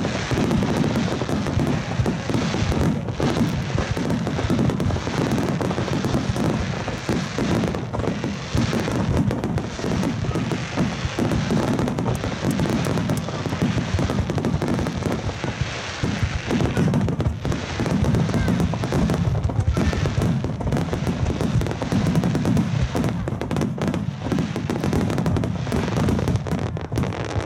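Dense, continuous booming of many large aerial firework shells, 30 cm shakudama, bursting almost at once across a wide front. The bangs overlap so closely that they run together without a break.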